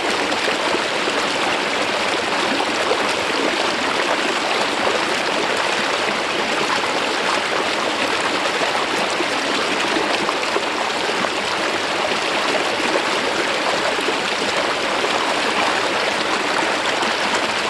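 Mountain stream water sliding smoothly down over a rock face, a steady, even rush of flowing water.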